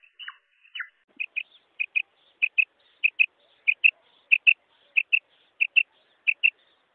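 Common quail calling: two short falling notes, then from about a second in a quick two-note call repeated evenly about every two-thirds of a second.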